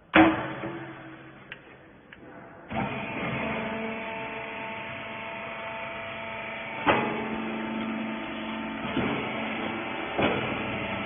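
A wiper-rag baler machine starts running about two and a half seconds in, a steady mechanical hum with several held tones and a couple of knocks. It is preceded by a single loud bang at the very start.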